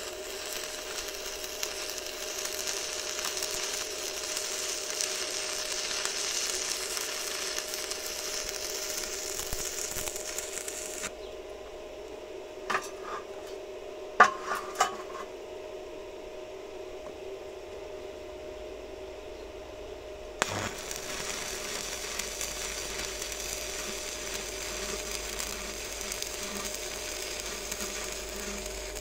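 Stick (MMA) welding arc with a 2.5 mm blue Kjellberg electrode crackling and sizzling steadily while running a fillet weld. The arc stops about eleven seconds in, a few sharp knocks follow, and the arc is struck again about twenty seconds in and runs on, under a steady low hum.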